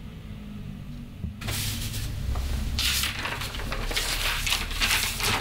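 Large sheets of drawing paper rustling and sliding as they are lifted and leafed through in a stack, starting about a second and a half in and getting busier and crackly about a second later, over a low steady hum.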